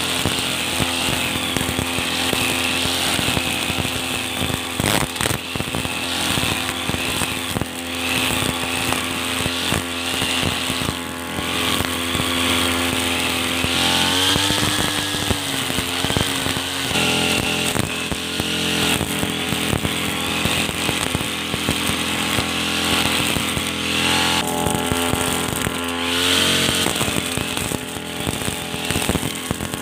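Two-stroke petrol brush cutter running at high revs, its blade cutting through grass and weeds. The engine note climbs briefly twice, about halfway through and again near the end.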